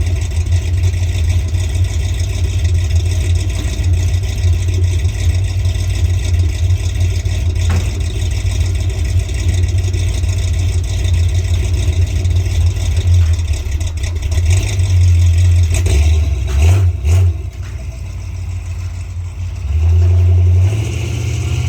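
1950 GMC pickup truck's engine running as the truck is driven, a steady low drone. It eases off about 17 seconds in, then picks up again, a little higher in pitch, as the truck accelerates near the end.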